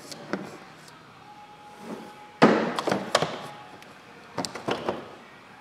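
Clunks and taps of a cylinder leak-down tester being handled and propped up on the engine: one loud clunk about halfway through, with lighter knocks before and after it.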